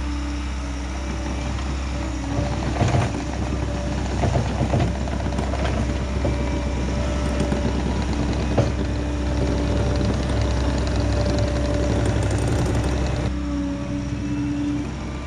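Diesel engine of a compact loader running steadily, with several sharp knocks between about three and nine seconds in.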